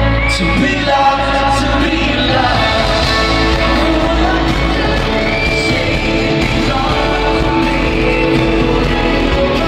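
Live pop ballad performed in a stadium: a male lead vocal sung into a microphone over the band, heard through the concert sound system from the audience.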